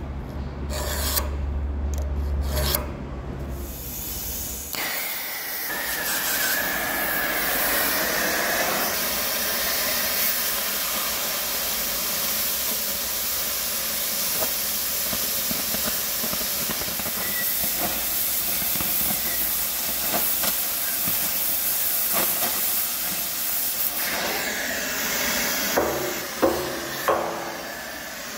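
Oxy-fuel cutting torch hissing steadily, starting about five seconds in, as it cuts through the thick steel of an excavator bucket cutting edge to trim it to length. A few sharp knocks come near the end as the offcut comes away.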